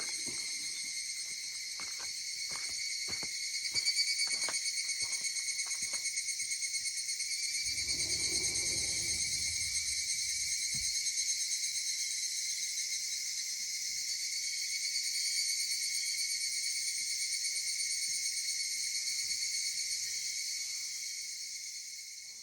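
Chorus of higurashi (evening cicadas) calling steadily in several high-pitched bands. A run of short clicks sounds during the first few seconds, and a low rumble sounds about eight seconds in. The chorus fades out near the end.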